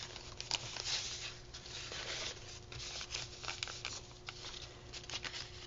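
Sheets of paper and a piece of fabric rustling and sliding under hands, with irregular small crackles and taps throughout, over a faint steady hum.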